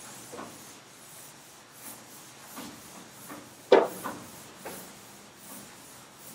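Sponge rubbing over a chalkboard in repeated sweeping strokes as the board is wiped clean, with one sharp, much louder sound a little past halfway.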